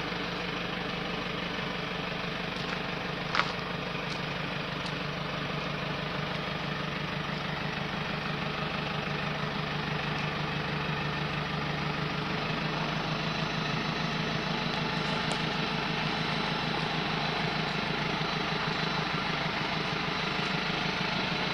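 A vehicle engine idling steadily, with a single short click about three seconds in.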